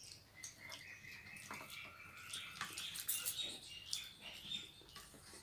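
Quiet sounds of eating by hand: chewing, with soft clicks and rustles of fingers working rice on plastic plates. A faint, thin high tone runs through the middle and steps up in pitch a few times.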